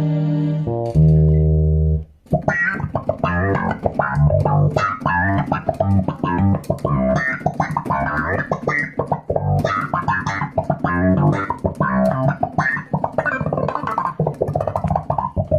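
Electric bass guitar playing: two held notes, a short break about two seconds in, then a long run of quick plucked notes.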